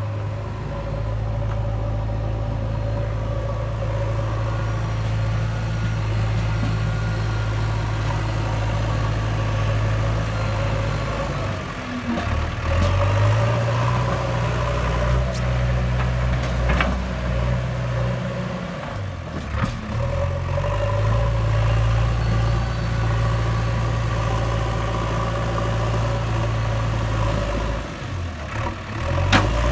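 JCB 3DX backhoe loader's diesel engine running steadily, its pitch dipping and picking up again three times as the load changes, with a few sharp knocks in between.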